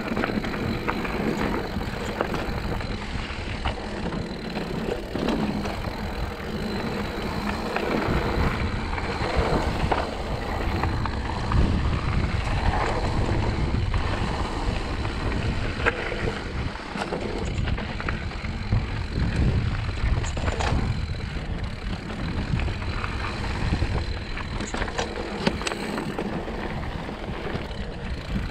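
Mountain bike riding over rocky dirt singletrack: tyres crunching on dirt and stones and the bike rattling with frequent clicks, under steady wind rumble on the camera microphone.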